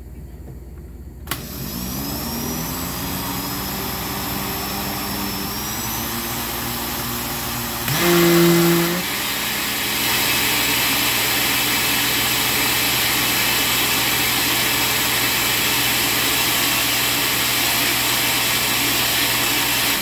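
Countertop blender motor switching on about a second in and blending thick muffin batter, its pitch rising as it comes up to speed. About eight seconds in there is a brief, louder hum. After that it runs steadily and louder.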